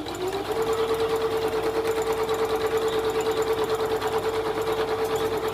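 Electric sewing machine running steadily, its motor tone rising as it gets up to speed in the first half second and then holding, with the needle going in a fast, even rhythm as it sews a seam.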